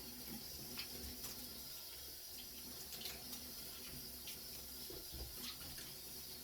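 Faucet running faintly into a sink as an alum block is rinsed off, with a few small clicks and splashes.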